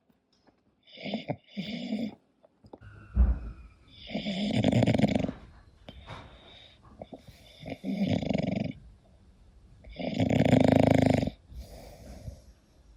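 English bulldog snoring in its sleep: rasping snores about every two to three seconds, two short ones near the start, then longer, fuller ones. A brief low thump about three seconds in.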